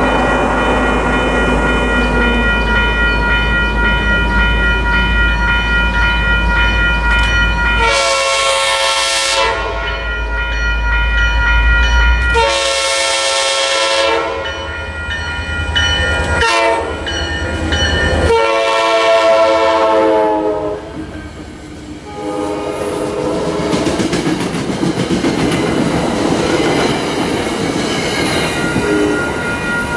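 Passenger train's locomotive horn sounding the grade-crossing signal as the train approaches: two long blasts, a short one, and a final long blast. The train then passes, its wheels clicking over the rail joints.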